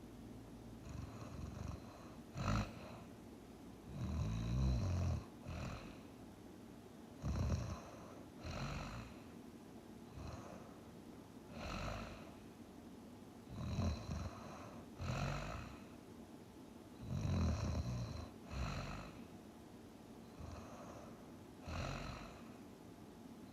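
A person asleep and snoring: rough snores on the breaths, repeating every couple of seconds, with quieter breathing between.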